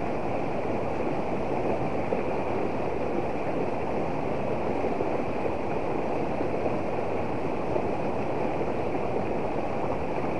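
Shallow river rushing over rocks and riffles: a steady, even flow of water noise.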